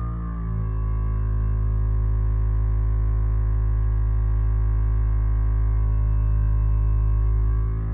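Hyperice Vyper 2 vibrating foam roller's motor running, a steady low hum under the weight of a foot. The pitch drops slightly about half a second in, and the level falls off just before the end.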